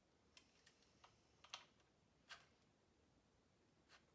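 Near silence broken by a few faint, irregular clicks and taps of shotgun parts being handled during reassembly of the barrel and handguard, the sharpest about a second and a half in.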